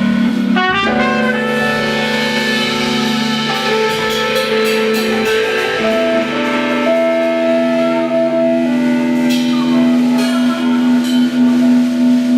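Small jazz band playing: trumpet holding long notes over keyboard chords and bass, with drums and cymbal strokes.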